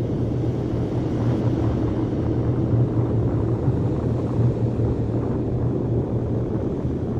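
A steady low rumbling drone, with a strong low hum under a rushing noise.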